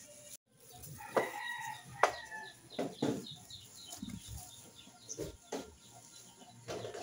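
Sharp clanks of a metal baking tray being handled and slid into a small electric toaster oven, with a rooster crowing in the background.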